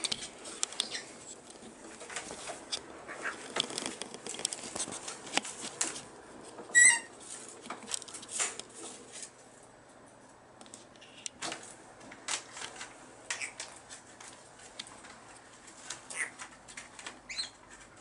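Brown-headed parrots rustling and picking at newspaper and straw toys on a play stand, a scatter of clicks and crinkles. One short, loud chirp comes about seven seconds in, and a fainter one near the end.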